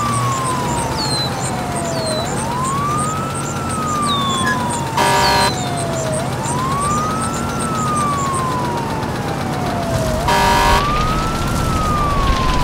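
Fire engine siren wailing, rising quickly and falling slowly in a cycle of about four seconds. A short horn blast cuts in twice, about five seconds in and again near ten seconds.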